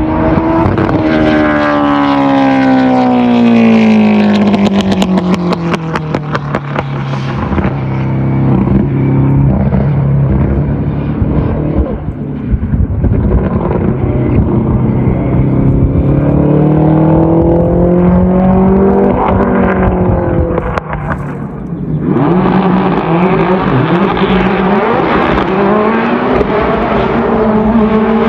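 Hillclimb race car engine: its pitch falls over several seconds as it slows, holds low, then climbs again as it accelerates. About 22 seconds in, the sound cuts to another car running at higher revs.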